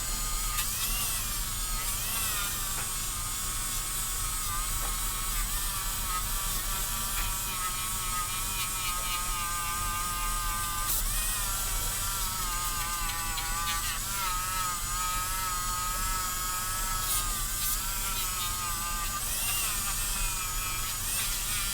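Cordless Dremel rotary tool running at speed setting 15, its polishing wheel pressed against a brass Zippo lighter case: a steady motor whine whose pitch wavers up and down.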